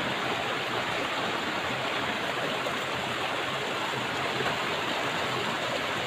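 Shallow rocky stream rushing over stones, a steady, even rush of running water.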